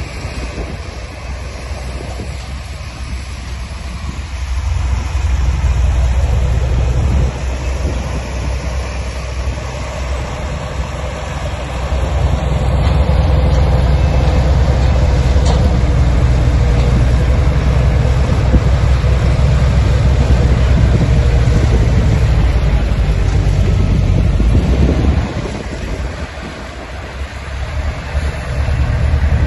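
Heavy diesel construction machinery running under load. The low engine noise swells about five seconds in and again about twelve seconds in, then dips briefly near the end.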